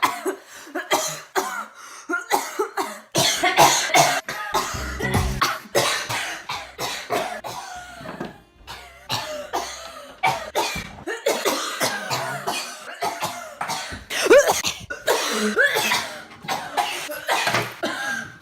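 A woman coughing over and over, in many short coughs one after another, with music playing behind. The coughs are put on for fun, not from a sore throat.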